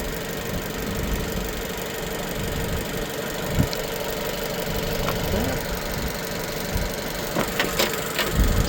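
Jeep Renegade engine idling steadily with the air conditioning running at full, under an open hood. A few light clicks come near the end.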